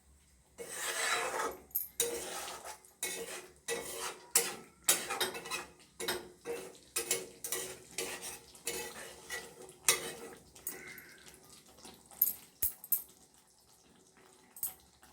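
Spatula scraping and knocking against a kadai while stirring a thick curry, about two strokes a second for roughly ten seconds, then a few scattered knocks near the end.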